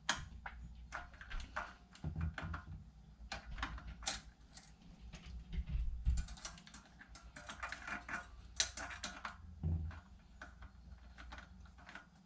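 Irregular light clicks, taps and clunks of metal parts being handled and set in place during hand work on a mini bike, with a few duller thumps.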